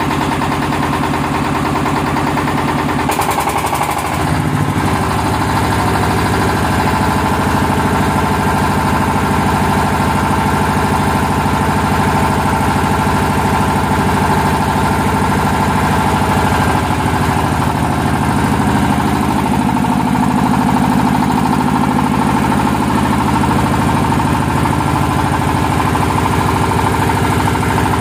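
Yanmar TF300 single-cylinder diesel engine driving a 31 kVA generator, running steadily and smoothly just after being hand-cranked into life, with a brief change in its note about four seconds in.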